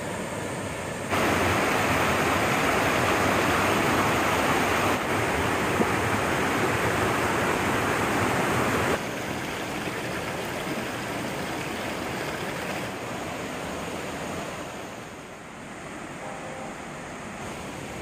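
Mountain stream rushing over granite boulders and small cascades, a steady watery rush. It steps up louder about a second in and drops back about halfway through.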